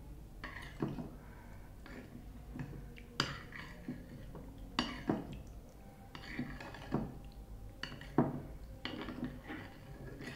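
Cutlery and dishes clinking: scattered light clicks and knocks, roughly one every second or so.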